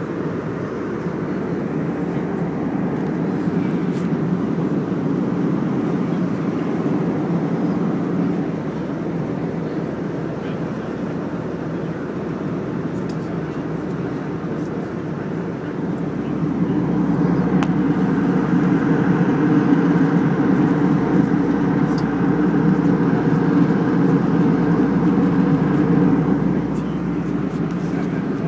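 Steady engine and air noise inside an airliner cabin, a low even rumble that grows louder about seventeen seconds in and eases back shortly before the end.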